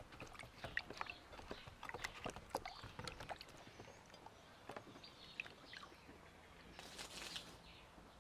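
Peeled onions being rinsed by hand in a glass bowl of water: faint small splashes, drips and light clicks, busiest in the first few seconds and thinning out after, with a brief rush of noise about seven seconds in.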